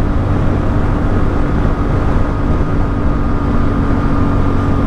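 CFMOTO 450MT's parallel-twin engine running at a steady cruising speed of about 100 km/h, an even drone over wind and road rush.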